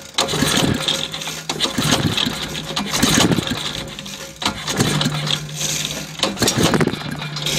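A 5 hp Briggs & Stratton Choke-A-Matic lawn mower engine being pull-started over and over, turning over in several separate stretches but never catching and running. It is a hard-starting engine with no primer bulb.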